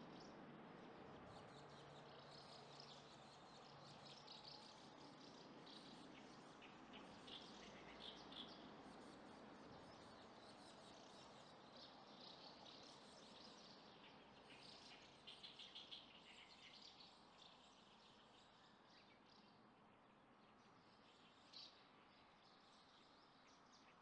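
Faint twittering of house martins: short runs of high chirps that come and go over a steady low background hiss, busiest about a third of the way in and again past the middle, then thinning out.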